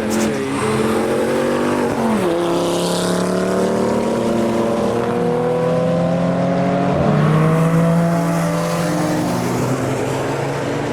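Car engine accelerating hard under load, its pitch climbing steadily and dropping sharply at upshifts about two seconds and seven seconds in.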